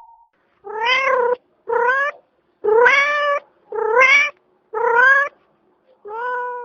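Domestic cat meowing six times, about once a second, each meow rising in pitch.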